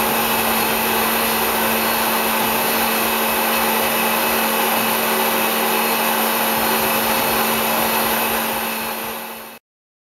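Voumard Type 203 internal grinder running under power: a steady motor whir with a constant low hum. It fades out about nine seconds in and stops abruptly.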